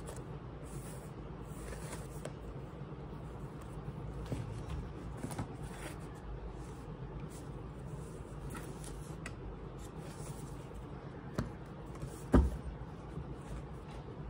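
Manga paperbacks being handled: covers and pages rustling with scattered light taps, over a steady low hum. Two sharper knocks come near the end, the second the loudest.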